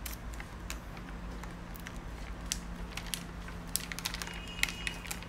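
Scissors cutting into a thin plastic bag, giving scattered snips and crinkling crackles of plastic over a faint steady hum.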